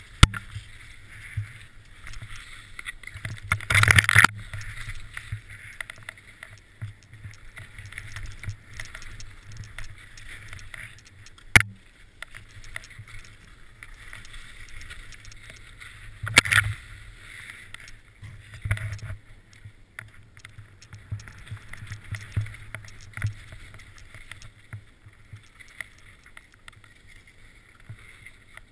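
Skis sliding and scraping over snow in a continuous hiss, with several loud sharp knocks and clatters, the biggest about four seconds in and another about halfway through.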